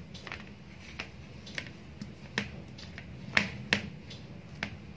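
Hand kneading and pressing soft pumpkin and rice-flour dough on a plate: a series of short, sharp slaps and pats at irregular intervals, about seven in all, the loudest around three and a half seconds in.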